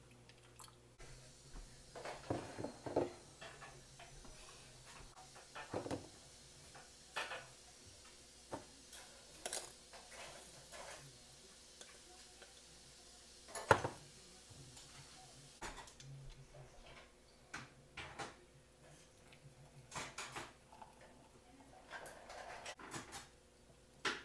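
Kitchen handling clatter: irregular knocks, clinks and short rattles as a metal saucepan and AeroPress coffee-maker parts are handled on a counter, with the sharpest knock about 14 seconds in.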